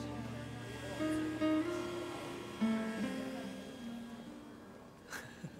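Background music: an acoustic guitar plays a slow melody of single plucked notes that ring out and fade.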